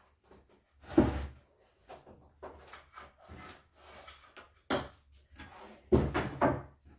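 Wooden knocks and thuds of boards being handled and set down, a few separate hard knocks with smaller bumps between, the loudest about a second in and two more close together near the end.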